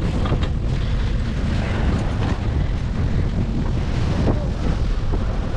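Wind buffeting the microphone: a steady, loud low rumble of wind noise.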